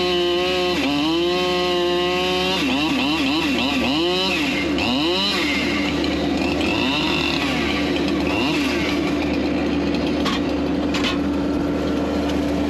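Chainsaw engine running at high revs, its pitch dropping and recovering about a second in as it bites into wood, then revving up and down for a few seconds before settling into a steadier note for the rest.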